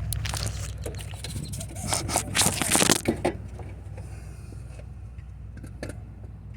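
Old alternator being worked out of a 2004 Chevy Cavalier's engine bay: a busy run of metal scraping, clicks and knocks for about three seconds, then a few scattered ticks over a steady low hum.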